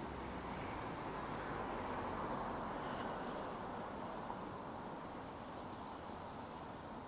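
Steady city street noise, a wash of traffic that swells a little about two seconds in and then eases off.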